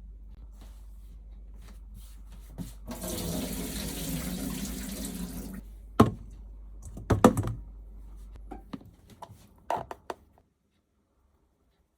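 Kitchen tap running into the sink for about two and a half seconds, then shut off. This is followed by a few sharp knocks of kitchenware, one single and then two short clusters, over a low steady hum that cuts out later on.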